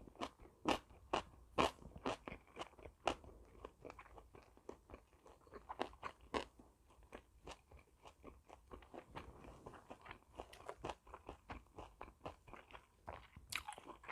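A person chewing food close to the microphone, with quick crunchy bites at an uneven pace, several a second.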